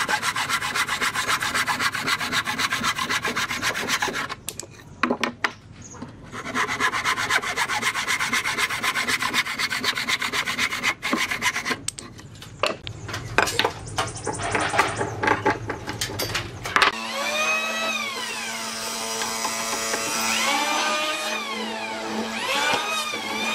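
Wooden frame saw cutting a board by hand in fast, even strokes, with a short pause about five seconds in and looser strokes later. About seventeen seconds in, an electric hollow-chisel mortising machine takes over, its motor whine repeatedly falling and rising in pitch as the chisel is plunged into the timber.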